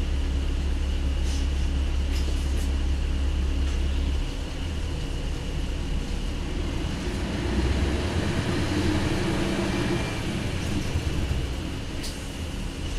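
Isuzu Cubic bus's V8 diesel engine running, with a steady low drone that drops away about four seconds in and then builds again.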